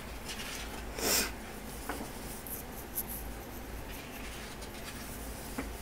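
A page of a large, thick photobook being turned by hand: one short paper swish about a second in, then a few faint rustles and light taps of fingers on the paper.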